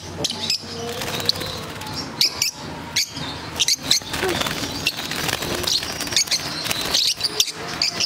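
A cage full of lovebirds chirping and squawking in short, high calls, mixed with sharp clicks and rattles as a hand reaches into the wire cage to catch birds.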